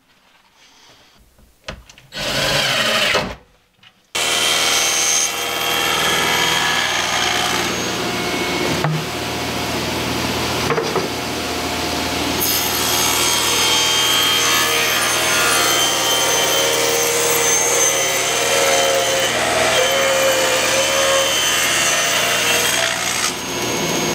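A cordless drill gives a short burst driving a screw to mount a metal drawer slide. About four seconds in, a table saw starts to run steadily with a motor hum, its blade ripping through a thick block of wood.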